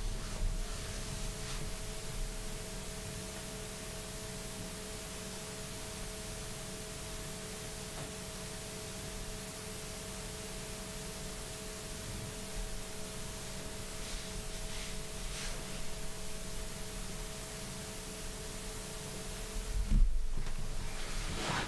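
Steady room tone: an electrical hum of a few fixed pitches over a constant hiss. A brief low thump comes near the end.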